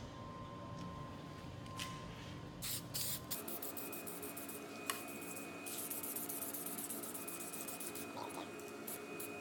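Aerosol spray can hissing: a couple of short sprays about three seconds in, then a longer steady spray lasting several seconds from a little past halfway, onto a car's side mirror and door.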